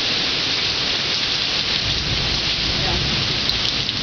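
Heavy rain pouring steadily in a thunderstorm, with a low rumble of thunder swelling about two seconds in.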